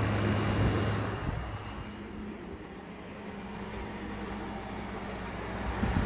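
Compressor of an Amana 4,000 BTU window air conditioner running with a steady low hum and a wash of fan noise, louder for the first second or so and then even.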